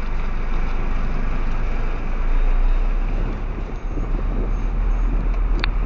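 Lorry's diesel engine heard from inside the cab as the truck pulls away slowly from a standstill, a steady low rumble that swells a couple of seconds in. A brief high chirp near the end.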